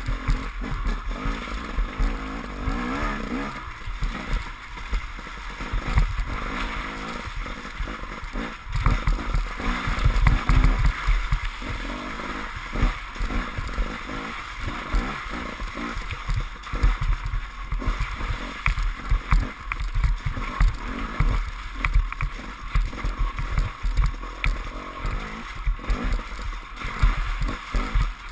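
KTM enduro motorcycle ridden through deep mud and puddles: the engine running and revving, with water and mud splashing and frequent knocks and thumps from the rough track.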